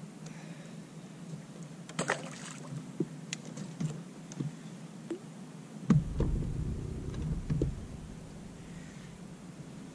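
Handling noise on a fishing boat: scattered clicks and knocks over a steady low hum, then a heavier thump about six seconds in followed by a low rumble for about two seconds.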